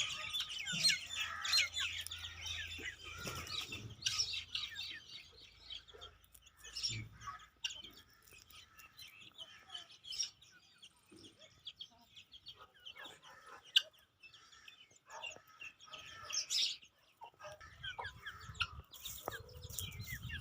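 Aseel chickens clucking and chirping, busiest in the first few seconds and sparser after, with one sharp click partway through.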